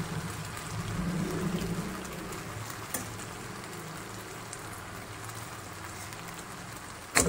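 Stir-fry of chicken and vegetables sizzling in a wok as boiled egg noodles are tipped in on top: a steady frying hiss. There is one sharp knock near the end.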